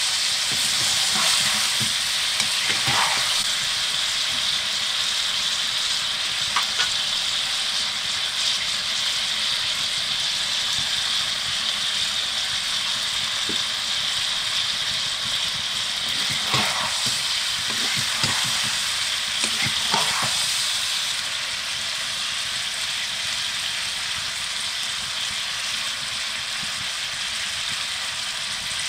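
Chicken pieces sizzling as they fry in a metal wok, with a wooden spatula stirring and scraping the pan in a few strokes near the start and a cluster about two-thirds of the way through. The sizzle eases a little near the end.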